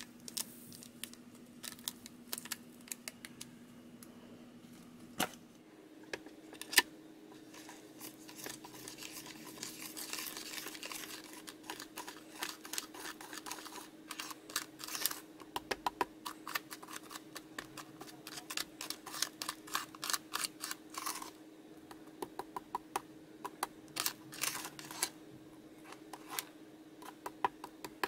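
Plastic spoons stirring thick Neruneru DIY candy paste in a plastic kit tray: scattered taps at first, then a fast run of clicks and sticky scraping, densest in the second half. A sachet is shaken, pouring powder into the mix near the start.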